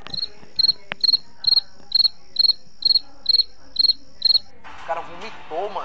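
Cricket chirping sound effect from a meme soundboard app: about ten short high chirps, roughly two a second, that stop about four and a half seconds in. A short burst of noise follows near the end.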